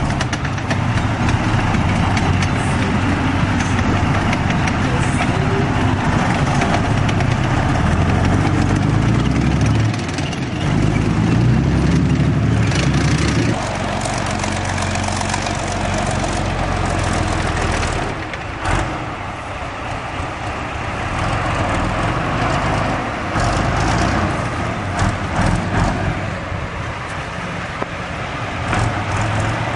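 Heavy military vehicle engine running loudly, revving up in steps about eight seconds in and dropping back to a lower, steadier run a few seconds later, then easing off further.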